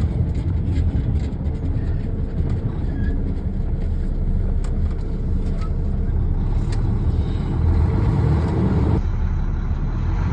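A vehicle driving along a woods road: a steady, loud rumble of engine and tyres, with scattered light knocks and rattles.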